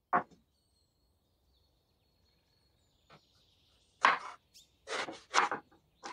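A single knock near the start, then from about four seconds in a chef's knife slicing through eggplant on a wooden cutting board: a quick run of crisp cuts, each ending with the blade tapping the board.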